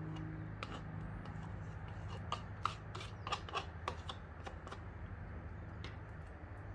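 A utensil clicking and scraping against a container as mascarpone cheese is scooped into a bowl: irregular small clicks for the first four seconds or so, over a steady low hum.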